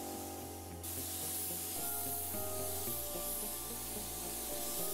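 Compressed-air gravity-feed spray gun hissing steadily as it sprays primer onto bare car-body sheet metal.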